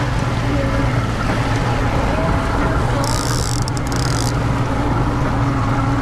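Outboard motor running steadily as the boat trolls, with wind and water rushing past. About three seconds in, a brief high hiss lasts just over a second.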